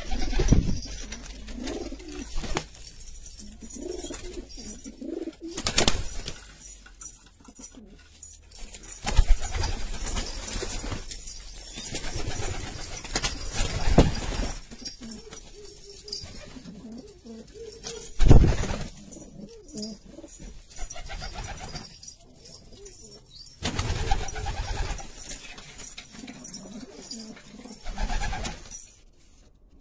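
Domestic pigeons cooing in a loft, low wavering coos repeating over and over. Several sudden loud knocks cut through the cooing, the loudest about eighteen seconds in.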